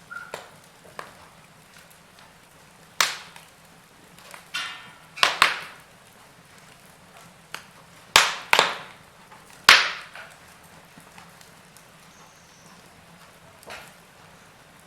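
Wood fire in a fireplace crackling: a faint steady hiss with scattered sharp pops, and several loud cracks in the middle.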